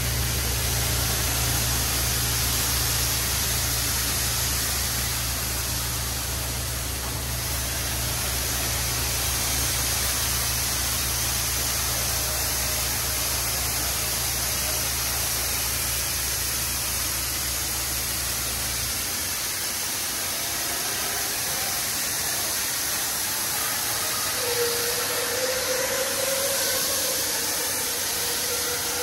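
WashBot Transformer 3XM in-bay car wash gantry spraying water and foam from its nozzles onto a car: a loud, steady hiss. A low hum under it cuts out about two-thirds of the way through, and a faint whine comes in near the end.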